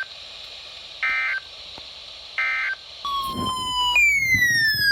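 Emergency Alert System data bursts over NOAA Weather Radio: three short, harsh digital screeches about 1.3 s apart, closing the flash flood warning. About three seconds in comes a tone that slides down in pitch, jumps higher about a second later and slides down again.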